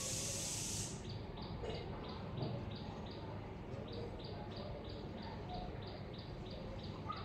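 Short high chirps repeating evenly, about three a second, over faint background noise. A steady hiss cuts off about a second in.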